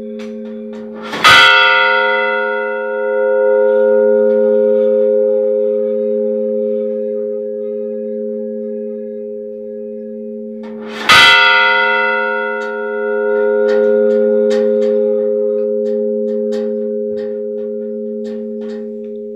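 A large church bell struck twice, about ten seconds apart, each strike ringing on in a deep hum of several tones that swells and then slowly fades.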